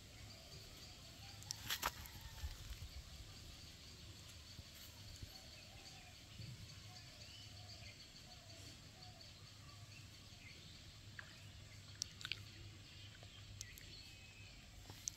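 Quiet rural outdoor ambience: faint bird calls over a low steady hum, with a few short sharp clicks about two seconds in and again near the end.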